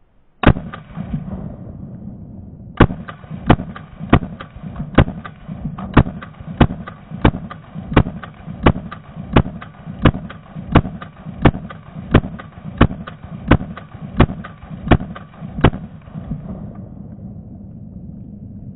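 AR-15 rifle in 5.56 with a Madhouse Xtreme Hybrid Compensator on the muzzle, firing a single shot, then a steady string of about twenty semi-automatic shots, roughly three every two seconds, each with a ringing echo.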